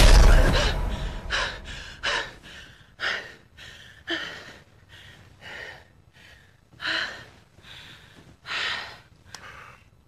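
A woman gasping and panting in short, ragged breaths, roughly one a second, as she jolts awake from a nightmare. A loud crash dies away in the first second.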